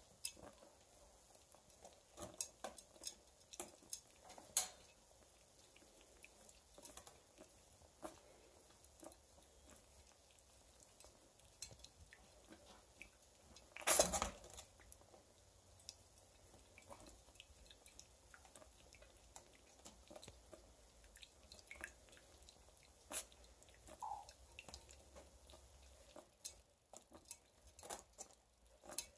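A ferret digging in a plastic water bowl with its paws: faint, irregular small splashes, drips and knocks against the bowl, with one louder splash about halfway through.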